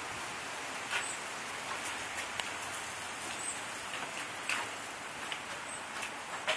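Steady rain falling, with irregular sharper drop ticks every second or so. A few faint, short high chirps sound on top.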